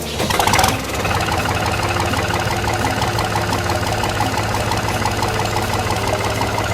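New Holland tractor's diesel engine idling steadily with an even clattering knock, after a loud rush of noise in the first second.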